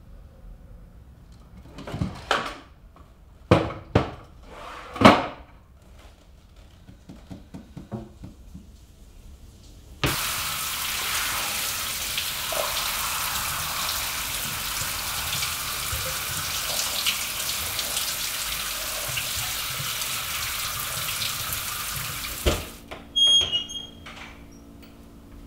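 A few sharp, loud hits in the first five seconds. Then, about ten seconds in, a shower comes on with a sudden start: a steady rush of running water for about twelve seconds. It cuts off with a knock, followed by a few short high squeaks.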